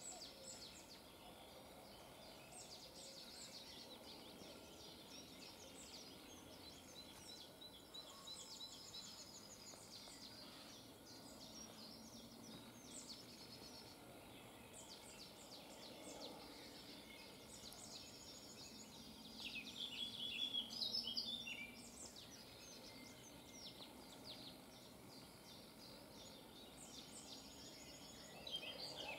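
Several woodland birds singing at once, with many short high notes and trills over a faint outdoor background, and a louder burst of song about two-thirds of the way through.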